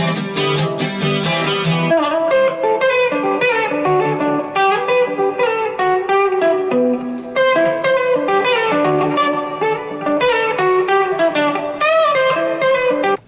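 Electric guitar played through a Zoom G5 multi-effects pedal and a combo amp: strummed chords for about two seconds, then an abrupt change to fast single-note lead runs that carry on to the end.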